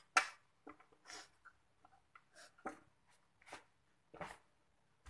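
A steel spanner clicking and scraping against a motorcycle's rear shock mounting bolt as it is fitted and held: about ten short irregular clinks, the strongest about four seconds in.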